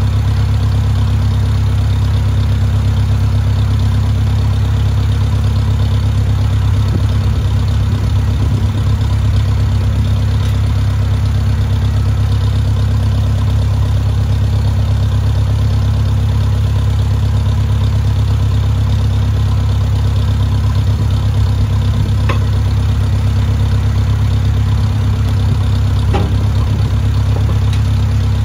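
Old farm tractor's engine idling steadily with a deep, even running note. A couple of light clicks come in the last few seconds.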